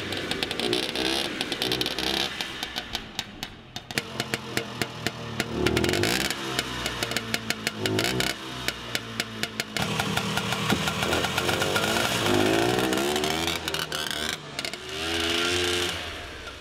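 1973 Sno-Tric SC 20-2 snowmobile engine running and revving up and down several times, with irregular popping in the middle stretch. It runs rough, not clean, even after carburettor adjustment and a new spark plug.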